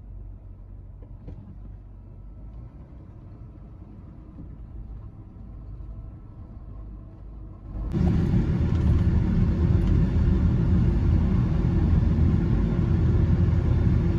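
A pickup truck's engine running, heard from inside the cab as a quiet steady low rumble; about eight seconds in, a much louder steady low rumble of the truck on the move takes over.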